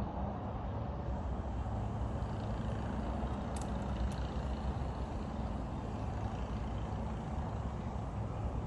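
Steady low rumble of a motor vehicle, with a couple of faint clicks about three and a half to four seconds in.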